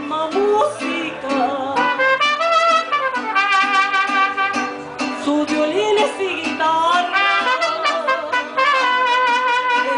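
Mariachi band playing live: trumpets carry the melody in held, harmonised phrases over a steady strummed rhythm and the plucked bass of a guitarrón.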